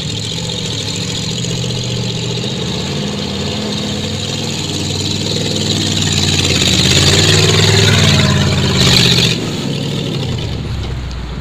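Bren gun carrier's Ford V8 engine running as the tracked carrier drives through mud, getting louder as it comes close to the camera. A short rush of noise comes about nine seconds in.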